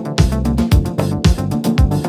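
Electronic music with a steady kick drum about twice a second under a sustained bass line and crisp percussion hits.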